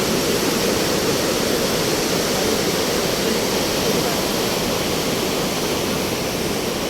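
A loud, steady rush of falling water.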